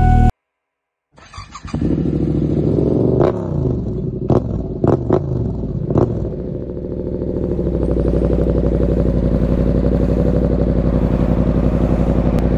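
Motorcycle engine running. It comes in after a brief silence about a second in, with several sharp clicks over the next few seconds, then settles into a steady, even idle.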